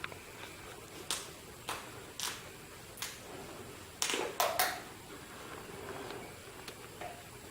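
Scattered light clicks and knocks of things being handled, about seven over several seconds, with a close pair about four seconds in.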